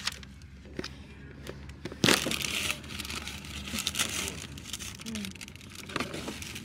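Paper or plastic cookie packaging crinkling as it is handled, with scattered crackles and one loud rustle about two seconds in.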